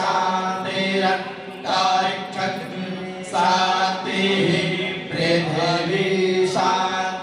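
Voices chanting Sanskrit mantras in sustained, steady-pitched phrases, a new phrase starting about every one and a half to two seconds.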